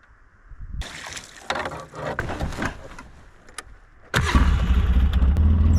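A motor starts abruptly about four seconds in and runs at a steady low hum. Before it come a few seconds of irregular scraping and knocking.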